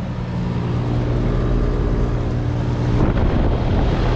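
Rheem Endeavor RP14AZ heat pump outdoor unit running in heat mode: a steady compressor hum with several steady tones under the rush of its fan. Its outdoor coil is frosted over but the unit is not yet in defrost. About three seconds in, a rougher, louder rush of noise joins in.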